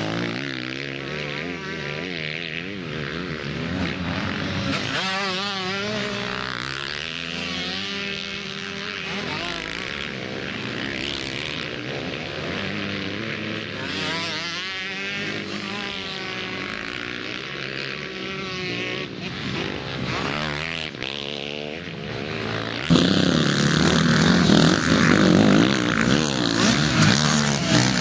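Several motocross bikes racing past, their engines revving up and down as riders work the throttle and shift through the corners. About 23 seconds in the engine noise jumps suddenly louder, with bikes passing close.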